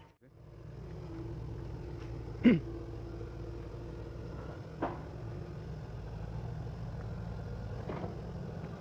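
Excavator's diesel engine running steadily with a low hum. A short, sharp sound that falls in pitch cuts in about two and a half seconds in, with a smaller one near five seconds.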